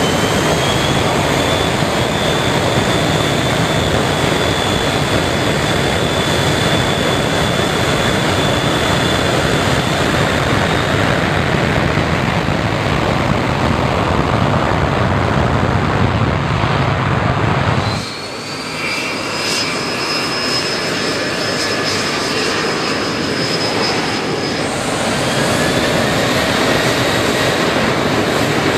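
Insel Air MD-80's two rear-mounted Pratt & Whitney JT8D turbofans running at high power for takeoff, a loud steady jet roar with a faint high whine as the jet moves off down the runway. About two-thirds of the way in it cuts to a Copa Airlines Boeing 737-700 rolling on the runway, its engines whining and rising in pitch over a lower roar.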